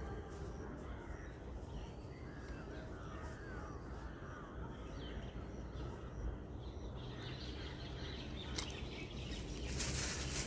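Faint outdoor ambience with birds chirping: a run of short calls in the first few seconds over a low steady rumble, and a single sharp click near the end.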